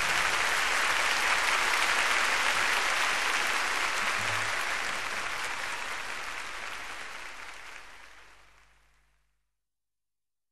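Audience applauding, fading out over several seconds and gone about eight and a half seconds in.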